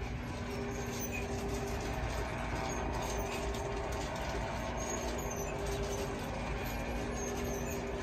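Steady mechanical hum with a low rumble and a held tone that never changes.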